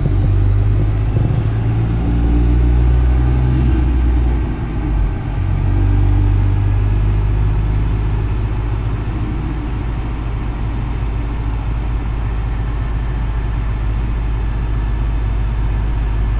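Turbocharged 2.3-litre four-cylinder of a 2019 Ford Mustang EcoBoost, fitted with a catless downpipe and custom exhaust, idling steadily. Its note shifts a little over the first few seconds and dips briefly about five seconds in.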